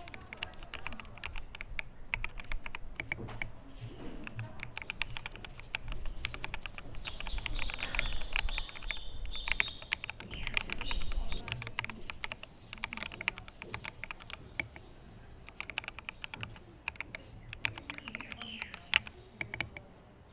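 Fast, continuous typing on a Cyberboard mechanical keyboard with Pang Hu V4 switches, Domikey Mobius keycaps and JWK stabilizers: dense, uneven keystroke clicks, busiest and loudest in the middle and thinning out for a few seconds later on.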